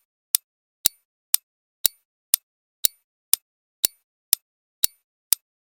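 Quiz countdown timer sound effect ticking evenly, two sharp clicks a second, about eleven in all, with silence between.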